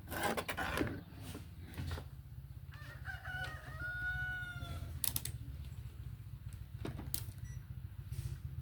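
A rooster crowing once, about three seconds in, a call of about two seconds that ends on a long held note. Under it runs a steady low hum, with a few sharp clicks.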